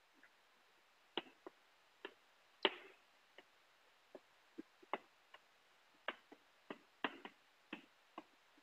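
Chalk tapping and scraping on a chalkboard as a sentence is written: a faint run of short, irregular taps, about two a second, the loudest a little under three seconds in.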